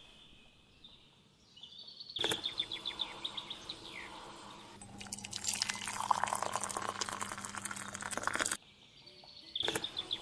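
A hot milky drink poured from a pan into a ceramic cup, a splashing stream for about three and a half seconds that cuts off abruptly. Before the pour, about two seconds in, and again near the end, small birds chirp in quick runs.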